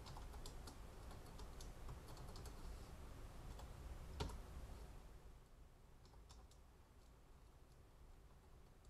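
Faint typing on a computer keyboard: scattered, irregular keystrokes as numbers are entered, with one louder key click about four seconds in.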